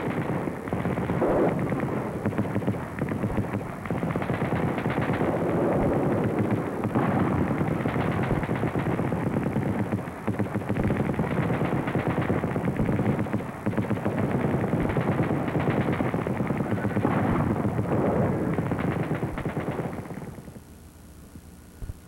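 Combat sounds from the Vietnam War: dense, rapid gunfire in a muffled, low-fidelity recording, fading out near the end.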